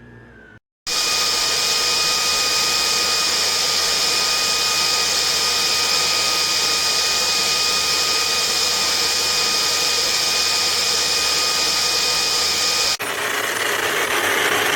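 Cordless stick vacuum cleaner's motor running at a steady high whine, starting abruptly about a second in. Near the end it switches sharply to a rougher, different steady running sound.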